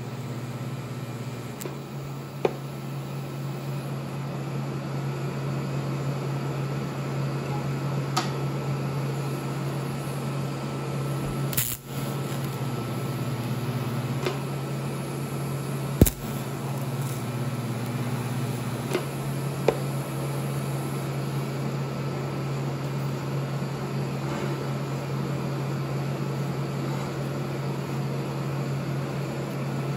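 TIG welding steel: a steady electric hum from the welding arc and welder, with a few sharp clicks and a brief break about twelve seconds in.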